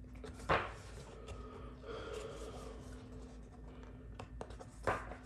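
Pages of a large paper booklet being turned by hand: two sharp page flips about four seconds apart, with soft paper rustling between.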